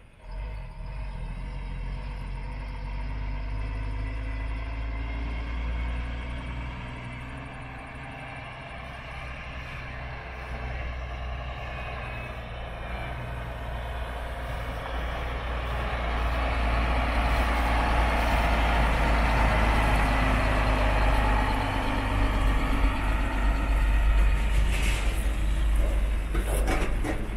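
Heavy road-train truck's diesel engine running, growing louder from about halfway through, with a couple of brief hisses near the end.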